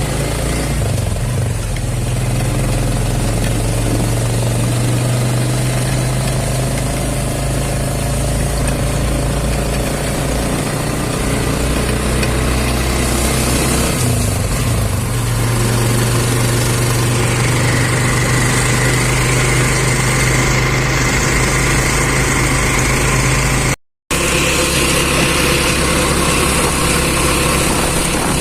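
Vehicle engine running steadily while on the move, with road and wind noise. The sound cuts out for a moment about three-quarters of the way through.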